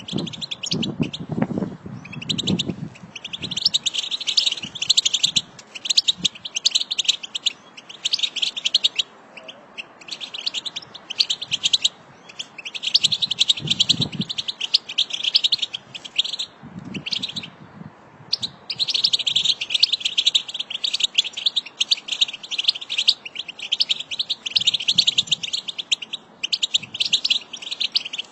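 A group of European goldfinches twittering: fast, dense chattering calls in runs of a second to a few seconds, broken by short pauses.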